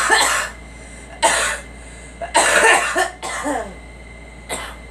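A girl coughing in repeated fits. There is a burst at the start and another about a second later, then a longer double fit in the middle that trails off in a falling voice, and a short, weaker cough near the end.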